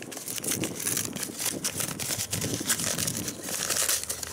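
Paper wrapper of a bundled pack of paper musket cartridges crinkling and rustling as it is unfolded by hand.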